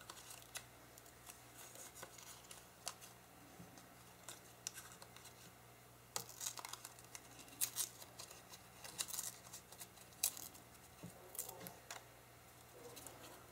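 Faint, scattered scratchy scuffs and light taps of an ink pad being rubbed and dabbed along paper edges to distress them, coming more often after the first few seconds, over a faint low hum.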